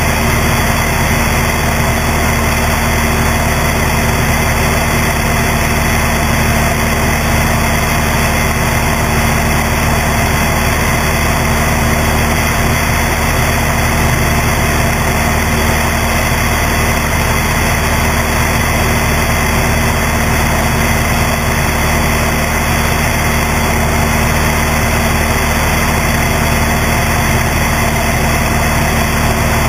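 Cessna 172's engine and propeller droning steadily in cruise flight, heard from a camera on the wing strut out in the airstream.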